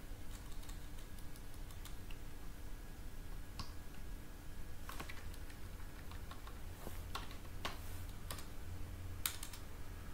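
Typing on a computer keyboard: an irregular run of key clicks as a terminal command is entered, over a steady low hum.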